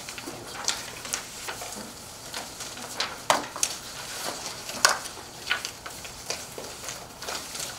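Paper rustling and shuffling on a meeting table, with irregular light clicks and knocks; the two sharpest knocks come a little over three seconds and about five seconds in.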